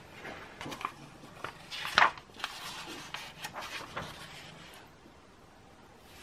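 Pages of an old paper magazine being turned by hand: soft rustles and handling clicks, with one sharper rustle about two seconds in, dying away over the last second or so.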